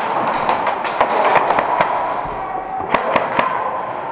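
Airsoft guns firing in the hall: a quick run of about eight sharp shots, then three more about a second later, over a steady background din.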